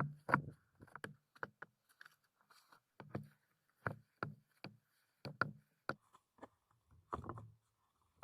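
Irregular sharp knocks, each with a dull thud, coming one or two a second with short pauses: hard objects being knocked or set down.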